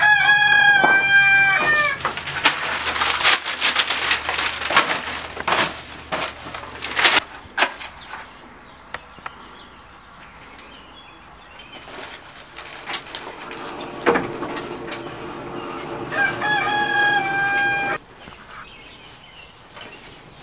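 A rooster crowing twice, once at the start and again about 16 seconds in, each crow a long call of nearly two seconds. Between the crows comes a flurry of sharp clicks and knocks over about five seconds.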